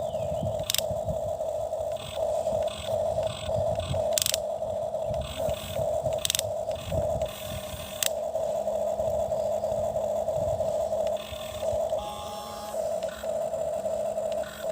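Toy excavator's small electric motor whining, stopping and starting again and again, with scraping and a few sharp clicks as the bucket digs.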